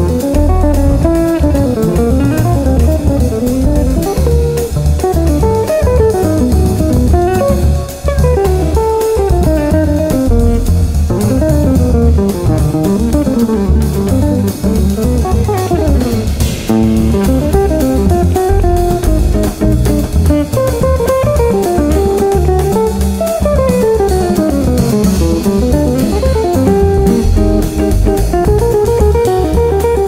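Jazz guitar trio playing: electric guitar runs quick lines that climb and fall over bass and drums.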